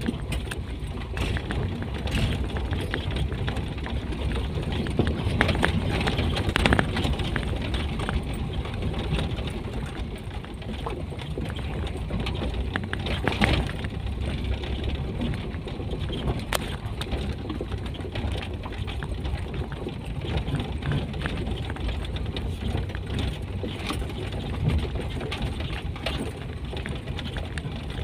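A lowered Toyota Kijang driving over a rough gravel road, heard from inside the cabin. The engine and tyre noise run steadily, with a few sharp knocks and rattles as the car jolts over the stones.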